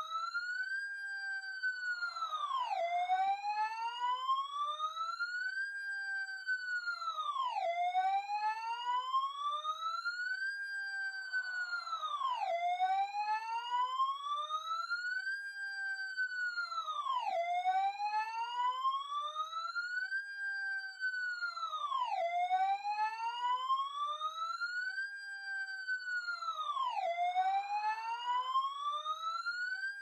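Fire truck siren wailing. Its tone rises slowly over about three seconds, holds briefly at the top, then drops quickly, and the cycle repeats about every five seconds.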